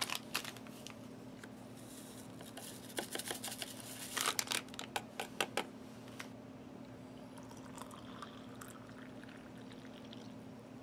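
Clicks and crinkling as instant hot chocolate powder is put into a ceramic mug, the busiest stretch a few seconds in, then hot water poured into the mug near the end. A steady low hum runs underneath.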